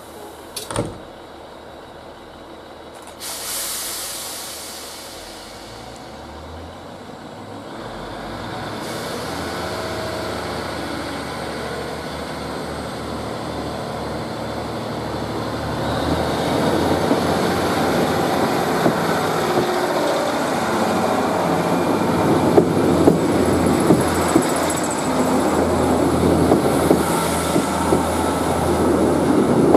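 Class 153 and Class 156 diesel multiple units with Cummins underfloor diesel engines pulling away from a station stop. An air hiss comes about three seconds in, then the engines build up and grow louder as the train passes close, with wheel noise and sharp clicks from the rail joints in the later part.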